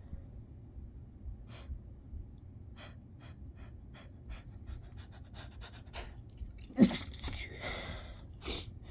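A person sniffling in a string of short, quick sniffs that come closer together, then a stifled sneeze about seven seconds in, the loudest sound, followed by one more sharp sniff near the end. The sneeze is brought on by chhinkni, a herbal sneezing snuff.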